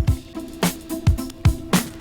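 Background music with a steady drum beat: low kick-drum thumps and sharp snare or hi-hat hits over a held bass line.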